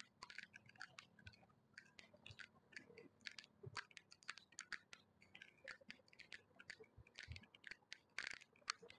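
Faint footsteps of a person walking: soft scuffs and ticks about twice a second.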